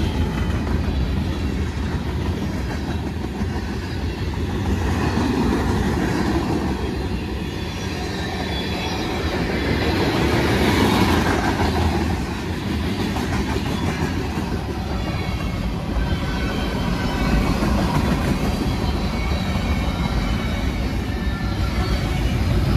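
Freight cars of a passing train rolling by: a steady rumble of steel wheels on the rails.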